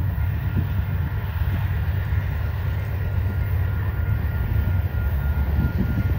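Union Pacific diesel locomotive hauling a freight train, its engine giving a steady low rumble with a thin steady high tone over it.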